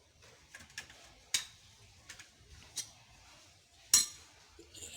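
Metal tyre-change tools being handled: a handful of separate clinks and knocks, with a sharp one about a second and a half in and the loudest about four seconds in.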